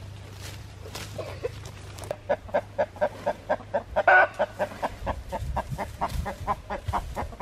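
Chickens clucking in a fast run of short clucks, about four or five a second, starting about two seconds in and loudest around the four-second mark.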